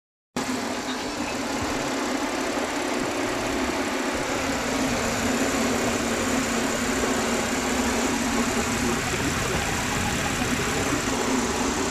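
Audi V6 TFSI engine idling steadily, its misfire repaired.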